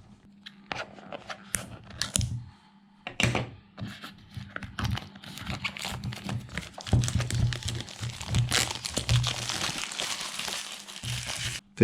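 Packaging of a new camera box being torn open and crinkled, scattered crackles at first that become a dense, continuous crinkling from about halfway through.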